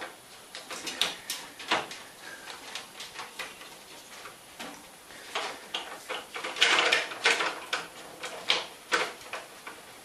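A raccoon clawing and nosing at a microwave oven's door, trying to pry it open: irregular clicks, knocks and scrapes against the door, with a louder spell of scraping and rattling about seven seconds in.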